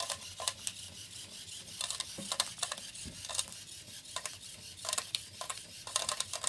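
Irregular light clicks and rattles, a few sharper ones scattered through, with no steady motor sound underneath.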